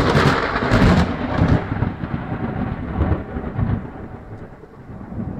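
Rumble of thunder: a loud crack-like onset, then rolling low swells that slowly die away.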